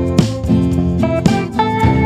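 Background music led by guitar, with chords struck about twice a second.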